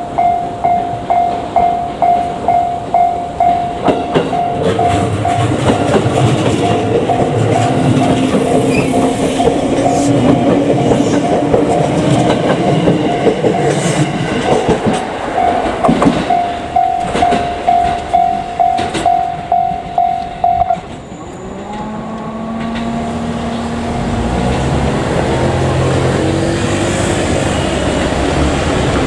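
Japanese level-crossing warning bell dinging about twice a second while a JR Kyushu 787-series electric limited express passes, its wheels clacking over rail joints. The bell stops about 21 seconds in, and a rising engine sound follows.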